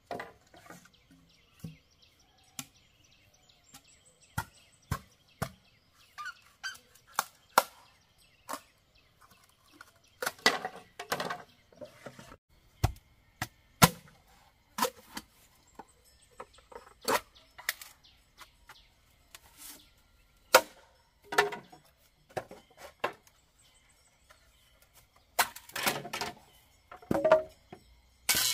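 Bamboo being chopped with a blade: a string of irregular strikes, some sharp cracks and some duller thuds, often in quick clusters with short pauses between.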